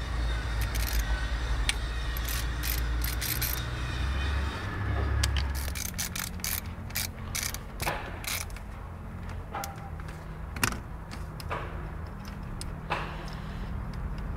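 Hand ratchet with a socket extension clicking in short irregular runs as 10mm bolts are undone on an engine. A low steady rumble sits underneath and fades out about six seconds in.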